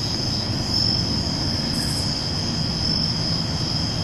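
Steady high-pitched trilling of crickets, an unbroken night insect chorus, over a low rumbling noise.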